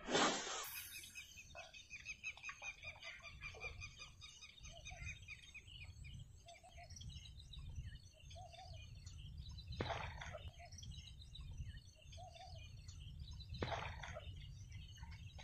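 Birds calling in quick repeated notes over a low wind rumble. A fishing rod's cast makes a whoosh at the very start, and two brief noisy rushes come later, a few seconds apart.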